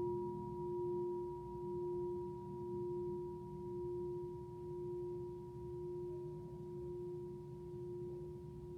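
Tibetan singing bowl ringing on in one steady low tone with a fainter higher overtone. The tone swells and dips about once a second and slowly fades.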